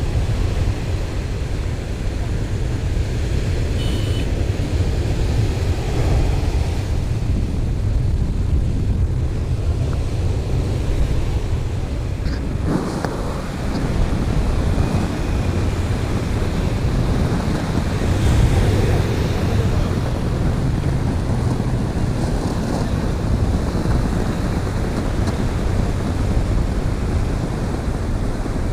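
Wind buffeting the microphone over the steady wash of breaking surf.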